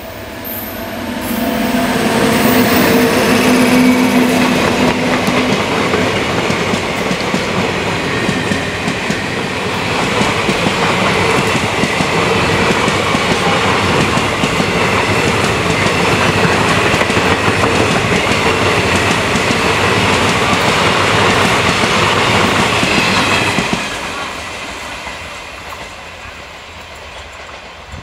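Indian Railways WAP-7 electric locomotive passing close with a steady hum, followed by its train of passenger coaches rolling by with wheels clattering over the rail joints. The noise drops away sharply a few seconds before the end as the last coaches recede.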